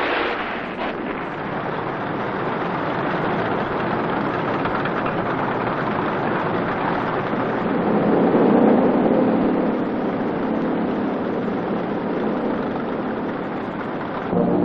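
Military vehicle engines running, a steady noisy drone that grows louder about eight seconds in, where an engine's pitched hum comes through.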